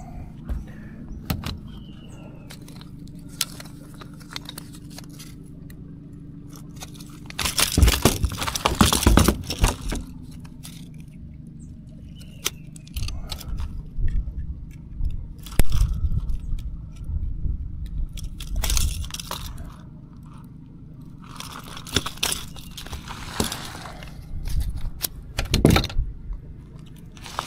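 A caught barramundi being landed and handled: irregular bursts of rattling, clattering and splashing from the fish and the lure's hooks, over a steady low hum.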